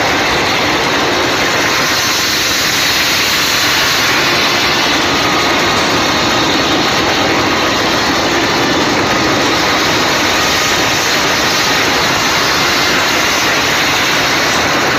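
Floodwater rushing across a road in a steady, loud, unbroken rush.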